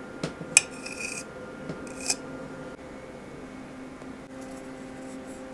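Metal utensil clinking against a ceramic plate as a slice of cake is set down: a few light clicks in the first two seconds, the loudest a short ringing clink about half a second in. A steady low hum underneath.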